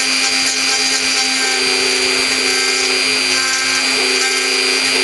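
Mini CNC router milling wood: the spindle runs with a steady, high-pitched tone while the stepper motors hum in short tones, about one a second, as the axes move back and forth clearing out pockets.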